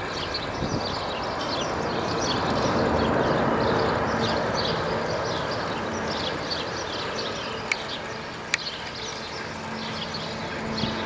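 Jet noise from the four Pratt & Whitney F117 turbofans of a Boeing C-17A Globemaster III on approach: a steady wide rushing sound that swells for the first few seconds and then slowly fades. Quick high chirps repeat throughout, and there are two sharp clicks about eight seconds in.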